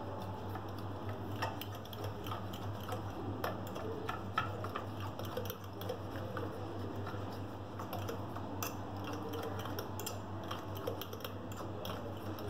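A metal fork stirring thick mayonnaise-based green sauce in a ceramic bowl: irregular light clicks and scrapes of the fork against the bowl, over a steady low hum.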